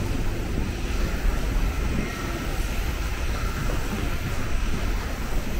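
A train running, a steady low rumble with a constant rushing noise over it.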